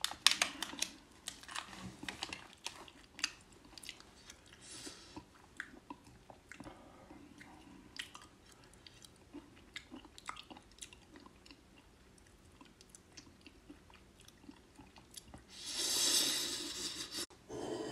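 Crunching and chewing of hot-pepper-coated peanuts: a run of small crisp crunches and clicks, fairly quiet. A louder hissing rush comes near the end.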